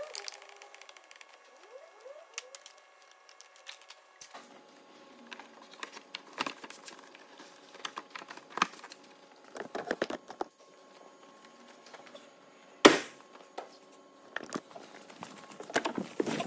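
Scattered light clicks, knocks and plastic rattles of hands working in a car's engine bay as the new DPF pressure sensor's pipes and clips are refitted, with one sharp knock about thirteen seconds in.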